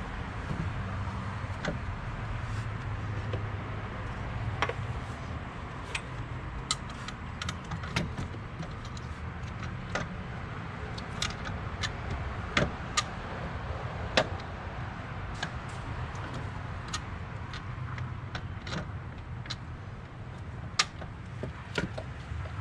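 Metal hand tools and parts clinking and ticking at irregular intervals during work on a car engine, over a steady low hum.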